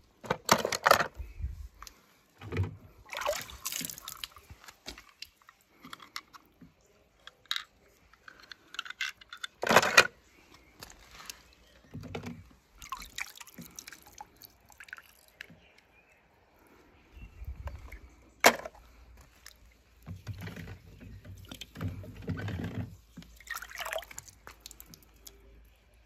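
Water splashing and dripping, with irregular clicks and knocks of small die-cast toy cars being handled; two sharp clicks, about ten seconds in and again near eighteen seconds, are the loudest.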